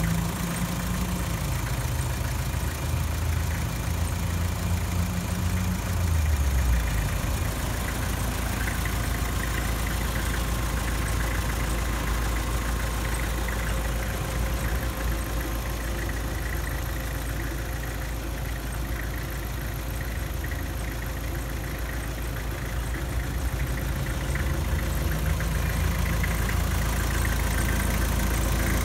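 Kubota M9000 tractor's four-cylinder diesel engine idling steadily.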